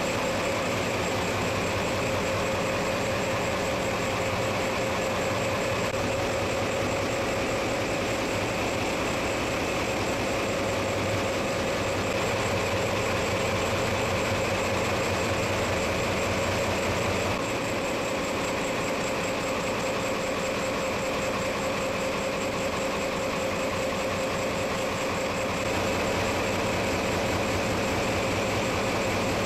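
Steady drone of running machinery in a ship's engine room, with a low hum and several steady whining tones over it. The low part shifts slightly about two-thirds of the way through and again near the end.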